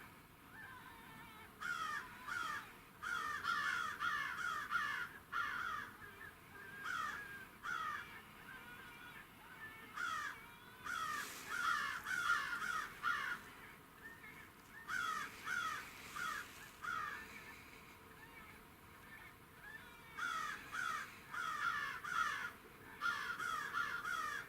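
Predator call playing a distress sound to lure coyotes: repeated bursts of harsh, quickly falling cries, each burst lasting a second or two with short pauses between.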